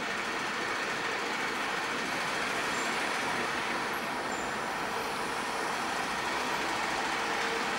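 Steady city street traffic noise, with a van driving past close by near the end.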